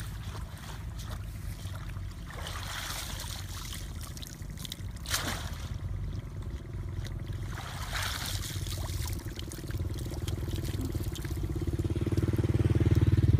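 Water splashing and trickling in a few short swishes as a woven bamboo fish trap is handled in shallow paddy water, over a steady low rumble that grows louder near the end.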